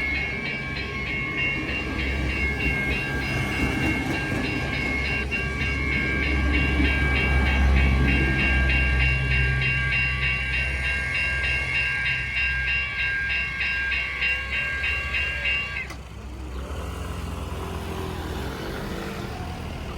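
Train air horn held in one long chord of several high notes, cutting off suddenly about sixteen seconds in. Under it, the train's low rumble swells to its loudest in the middle, with the rhythmic clatter of wheels on rail joints as the train pulls out of the station.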